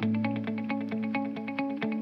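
Background music: an effects-laden guitar picking quick, evenly repeated notes, about six or seven a second, over a held chord.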